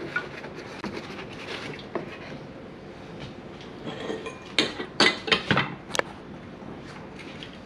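Soft handling and rustling, then a quick cluster of sharp clinks and knocks about four and a half to six seconds in as a glass bottle is fitted into its metal display stand.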